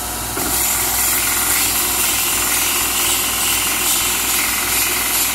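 Steel set screw being ground on a running belt sander: the sander's motor runs steadily, and about half a second in the screw meets the belt and steady metal grinding sets in. The screw is being shortened and ground to a point because it bottoms out in the spindle.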